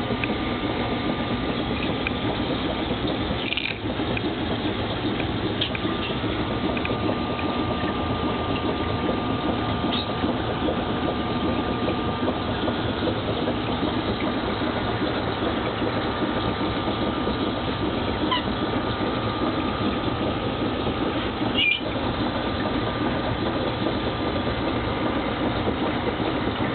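Aquarium filter pump and circulating water running steadily, a constant hum and rush of water.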